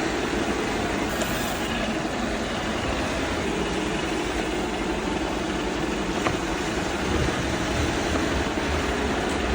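Roomba robot vacuum running: a steady whirring motor-and-brush noise with a constant low hum, and one brief tick about six seconds in.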